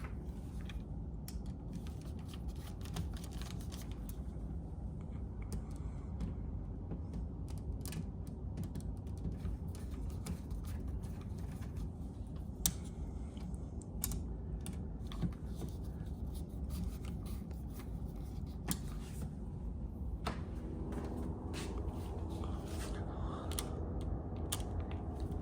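Scattered small clicks and scrapes of metal hardware being handled as an old keypad door lock is unscrewed and taken off the door, over a steady low hum.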